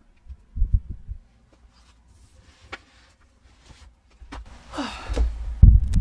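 A heavy TPE sex-toy torso being handled and moved on a table: dull thumps about half a second in, faint handling clicks, then a breathy effort sound as it is lifted and a heavy thump as it is set back down near the end.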